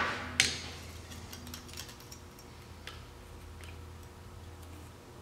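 Light metallic ticks and clinks of a screwdriver and wrench on the valve-lash adjusters of an engine's cylinder head, with one sharper clink about half a second in and a few faint taps after.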